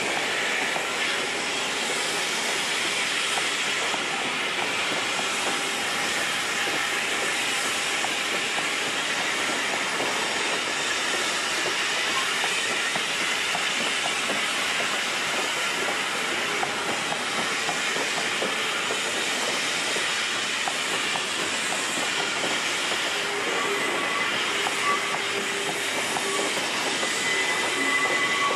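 Freight train cars rolling past at steady speed, with a continuous rumble and clatter of steel wheels on rail. The train is made up of coal hopper cars and then flatcars. Faint steady squealing tones join in near the end.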